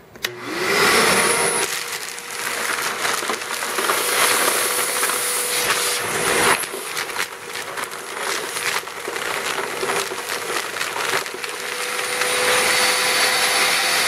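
Vacmaster Professional 9-gallon wet/dry shop vac switched on, its motor spinning up in the first second to a steady whine. Crushed gravel stones clatter and click through the hose as it sucks them up, most of them in the middle of the stretch.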